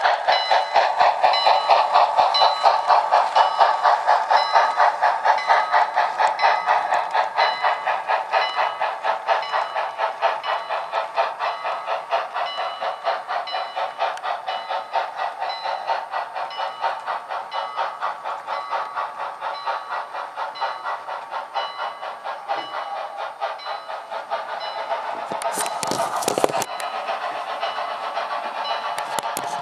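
Model train of Southern Pacific 4436 running along the layout track with a fast, steady rhythmic pulsing that slowly fades as it runs on. A brief clatter comes near the end.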